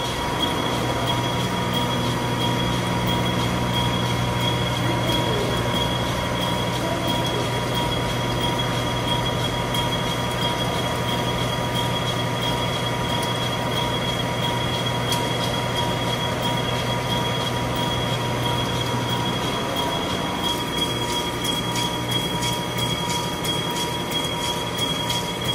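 CNC boring machine cutting the steel bearing bores of a jaw crusher frame: a steady machine hum with two high, steady whining tones. About 20 seconds in the low hum drops out and a rapid crackle of ticks from the cut comes through.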